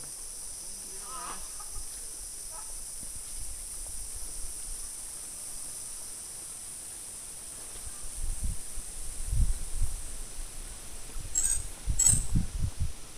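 Steady high-pitched chorus of insects in the surrounding vegetation. From about eight seconds in, low uneven rumbling thumps come in and get louder, with a couple of sharp clicks near the end.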